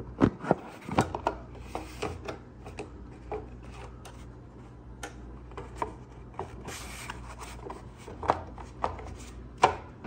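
Handling noise: irregular knocks, clicks and rubbing as the phone is moved about in the hand, over a faint steady low hum.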